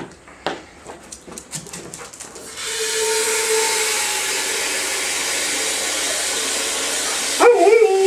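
A few knocks and clicks, then water from a tap runs steadily into a container for about five seconds. Near the end an Alaskan malamute breaks into a loud, wavering, howl-like "talking" vocalisation.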